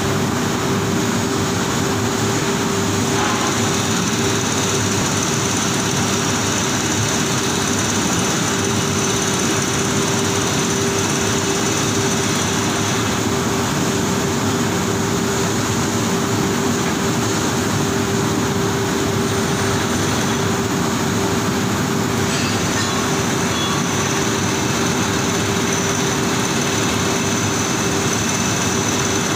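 Foundry shot blasting machinery running: a loud, even mechanical din with a constant hum tone throughout.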